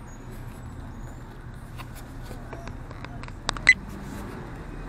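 Steady low background rumble, with two short sharp clicks close together about three and a half seconds in, the second the louder.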